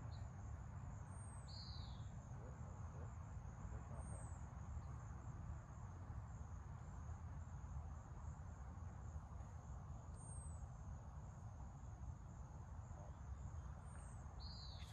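Natural pond-side ambience: a steady high-pitched insect drone, with a bird giving short, falling chirps several times, over a low rumble.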